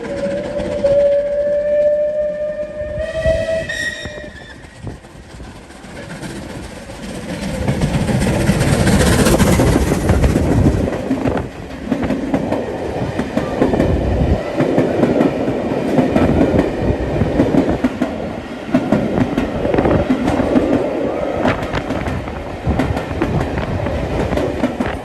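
A train sounds one long warning blast lasting about four seconds, then passes close by. Its wheels clatter rhythmically over the rail joints, loudest about eight to eleven seconds in.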